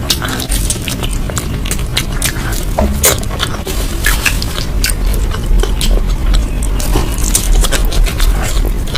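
Close-miked chewing and biting of food, with many quick, irregular sharp clicks throughout.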